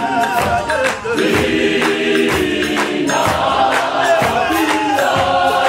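Large gospel choir singing a Sesotho song in close harmony, with sustained chords over a steady beat.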